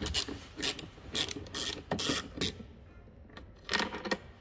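Small hand ratchet turning a Torx T25 bit to unscrew a bolt: its pawl clicks in short strokes about twice a second, pauses, then clicks a few more times near the end.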